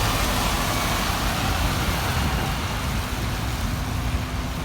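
Steady low rumble of idling vehicle engines under a wash of city street noise.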